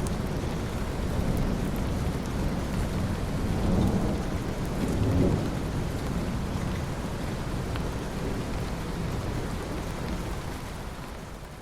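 Steady heavy rain with rolling thunder rumbling underneath, swelling twice about four and five seconds in, then fading down near the end.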